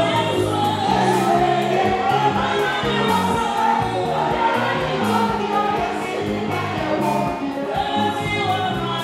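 Live gospel music: a woman singing through a microphone over a band, with a stepping bass line and a steady drum beat, and other voices singing along.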